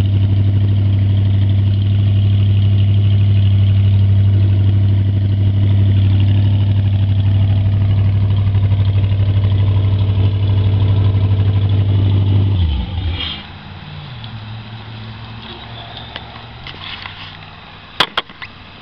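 OMC Cobra marine engine running steadily on its test run after being repaired for freeze damage. About two-thirds of the way through it is shut off and winds down within half a second. A couple of sharp clicks follow near the end.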